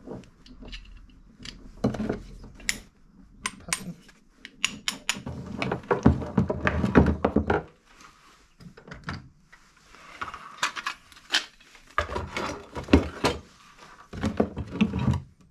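Steel forestry chain clinking and rattling as it is handled, with irregular metallic clicks and knocks as a clevis grab hook for 10 mm chain is worked onto a link.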